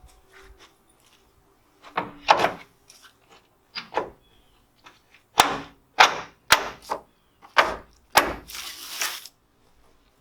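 Wooden strips being pried off a barn wall over house wrap and dropped: a string of sharp wooden cracks and clacks, with a rough rasping noise lasting about a second near the end.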